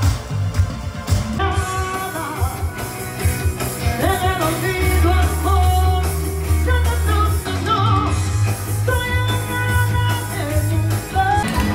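Live band music with a lead singer, over a strong steady bass line; the music changes about a second in, where the singing begins.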